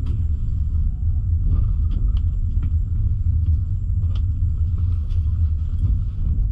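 Steady low rumble of a double-decker passenger coach rolling along the rails, heard from inside the coach, with a scattering of sharp clicks and knocks.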